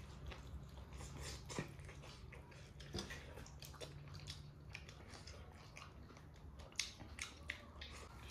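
A person chewing and biting into chicken close to the microphone: irregular wet clicks and crunches, with one louder crunch late on.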